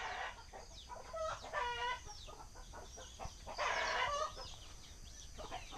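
Chickens clucking and calling in short bursts, with a harsher, raspier call about two-thirds of the way through.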